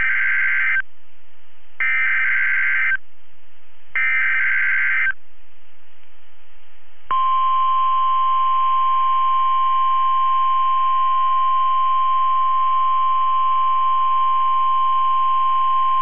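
NOAA Weather Radio Emergency Alert System alert: three one-second bursts of warbling SAME digital header tones with a hiss between them, then about seven seconds in the steady 1050-hertz warning alarm tone starts and holds, signalling that a warning message follows.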